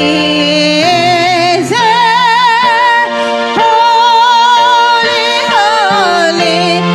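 Women singing into handheld microphones, with long held notes and wide vibrato.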